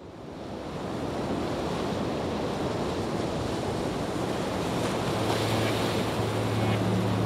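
A rushing sound of surf and wind fades in and swells steadily louder. About five seconds in, a low steady drone joins it.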